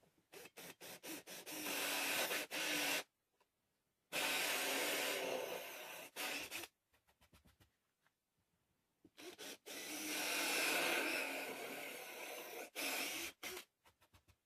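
Cordless drill with a hole saw cutting ring-shaped grooves into plywood, in three runs of a few seconds each with short pauses between. The first and last runs open with quick stuttering pulses before the cut settles into a steady run.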